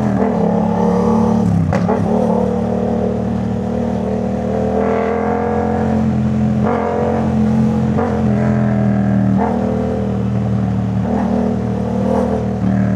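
Yamaha MT-07's parallel-twin engine through a Jeskap full exhaust system, running under way. Its note climbs and then drops back several times as the throttle is opened and eased off.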